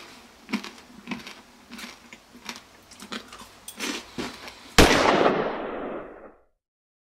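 A dog licking hardened mutton fat off a wooden benchtop, wet lapping strokes roughly every half second to second. Near the end a sudden loud hit breaks in and dies away over about a second and a half.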